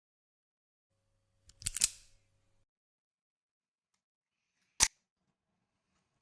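Mechanical clicks from a Crosman SNR 357 CO2 revolver: a quick run of several clicks about two seconds in, then a single sharp click near five seconds.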